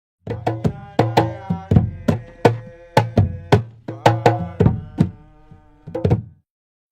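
Music of pitched hand-drum strikes, about a dozen sharp hits in a loose rhythm, each ringing with a clear tone, that stops abruptly a little past six seconds in.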